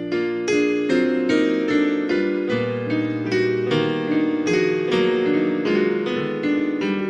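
Gentle instrumental keyboard music: a slow melody of struck piano notes, about two a second, over held low notes.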